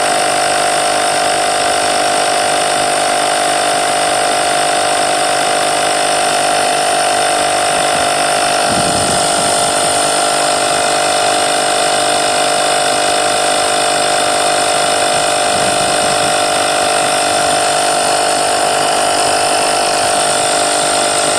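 WORKSITE 20-volt cordless tire inflator's compressor running steadily under load. It is pumping a large dual truck tire up toward 105 PSI, close to the top of its range.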